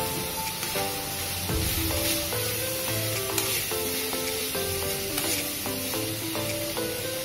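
Chopped vegetables sizzling in hot oil in a stainless-steel wok, stirred and scraped with a metal spoon. Background music with a melody of short notes plays over it.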